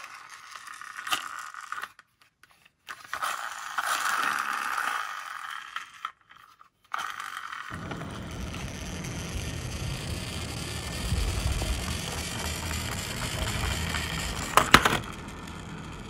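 Plastic toy cars handled over a cardboard box, with light scraping, rattling and crinkling. About halfway through this gives way to a steady low rumbling noise, with a couple of sharp clicks near the end.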